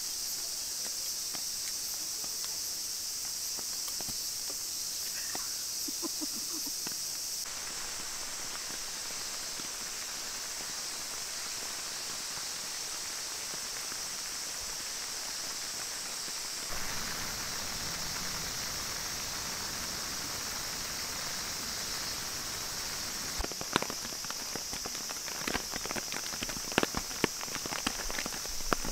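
Rain: a steady high hiss, and near the end many irregular sharp taps of drops falling on a nylon DD Tarp.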